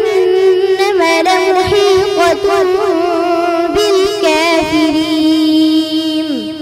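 A boy reciting the Quran in the melodic tajweed style, drawing out one long held note with wavering ornaments that falls away near the end.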